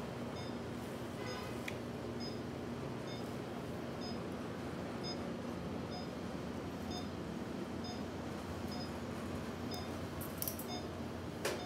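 Operating-room patient monitor beeping steadily, a short high beep a little under once a second, over a constant room hum. A couple of sharp clicks come near the end.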